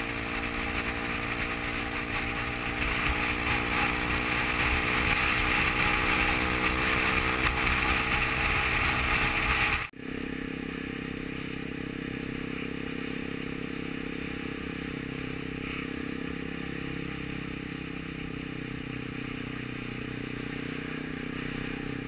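Honda CRF250M single-cylinder engine running at cruising speed under loud wind rush on the helmet. About ten seconds in it cuts abruptly to a quieter, steady engine note at town speed.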